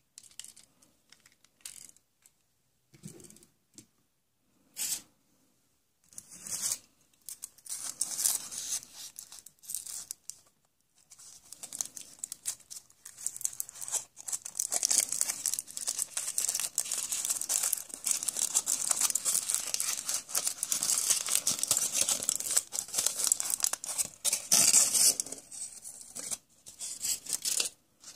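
A surprise egg's wrapper being torn open and crinkled. A few scattered clicks come first, then several seconds of dense crinkling and tearing that grows heaviest in the middle and eases off near the end.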